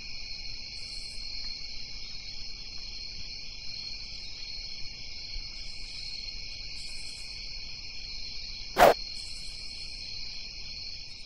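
Steady high-pitched insect chirring that pulses evenly throughout, with a single sharp knock about nine seconds in.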